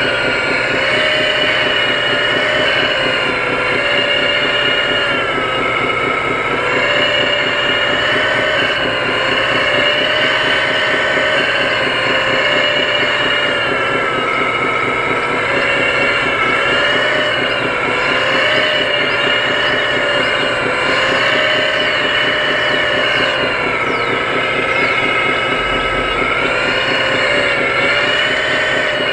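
1/14-scale RC hydraulic excavator working: a steady mechanical whine over a fast, even rattle, the pitch dipping and rising again every few seconds as the boom, swing and bucket are worked to load dirt into the dump truck.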